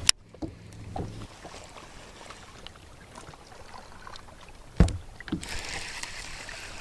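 Small handling noises aboard a fishing boat. A sharp click comes at the start, a steady low hum stops about a second in, and a single low thump falls nearly five seconds in, over a soft hiss.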